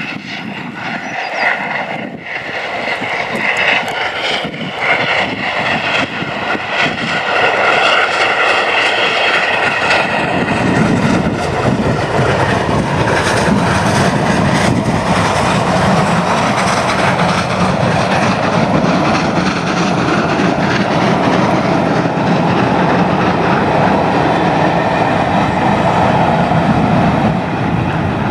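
Steam-hauled passenger train approaching and passing close by: it grows louder over about the first ten seconds, then the carriages roll past in a steady, loud rush.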